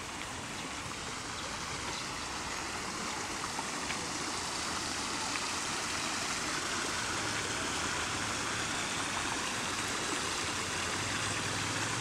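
Shallow stream spilling over a low row of rocks in a small cascade: a steady rushing splash that grows slightly louder as it goes on.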